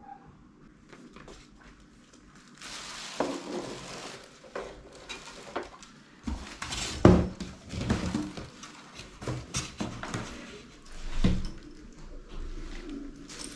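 Plastic parts of an electric fan being handled and fitted together: irregular clattering, clicks and knocks, with a stretch of rustling from about three seconds in and two louder knocks later on.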